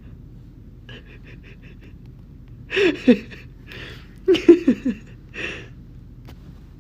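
A person's short, breathy vocal sounds in two clusters, with quick falling pitches, over a low steady hum; about a second in, a quick run of about six short high ticks.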